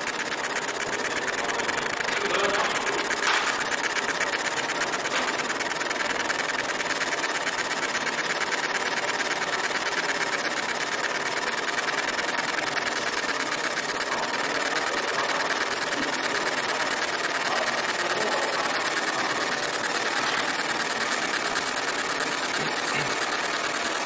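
Fiber laser marking machine engraving an MDF bowl: a steady mechanical buzz with a fast, regular pulsing.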